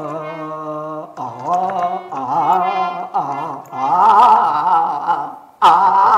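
A man sings wordless, held notes with a wobbling pitch over a harmonium, a vocal 'sur' exercise rather than a song. It opens on a steady held chord and grows louder and higher from about four seconds in, breaking off briefly near the end before starting again loudly.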